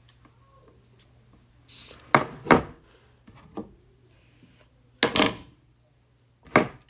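A series of loud hard knocks and clunks, as of objects being handled and set down: two in quick succession a little over two seconds in, a lighter one a second later, another quick pair about five seconds in, and a single knock near the end.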